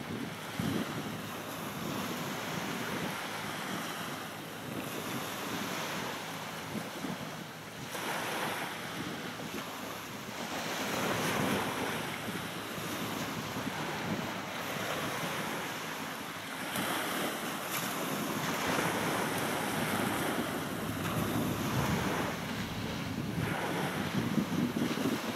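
Wind buffeting the microphone, swelling and easing every few seconds, over the wash of small waves on the water.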